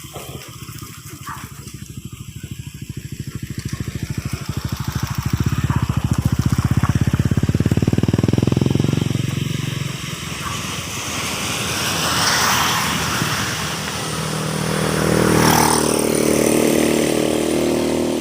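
Motor vehicles passing close by one after another: first a pulsing engine that swells to its loudest about eight seconds in and then fades, then two more pass with a rush of noise near the end.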